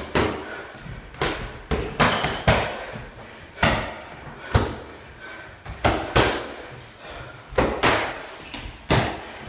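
Boxing gloves and focus mitts smacking together in pad work, a dozen or so sharp slaps at irregular intervals, often two or three in quick succession.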